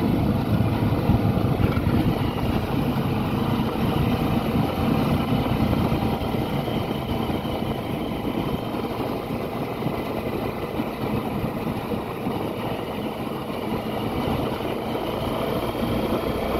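A vehicle's engine and road noise running steadily, heard from on board.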